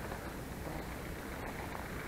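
Faint, steady rustle of tall grass brushing against someone walking through a hayfield, with no distinct steps.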